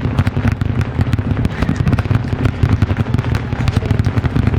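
Fireworks display exploding in a rapid, unbroken barrage of many bangs a second, with crackling over a deep rumble.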